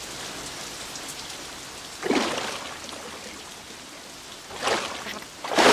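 Steady rainfall sound effect, an even patter of rain, with a louder sudden splash about two seconds in and another shortly before the end.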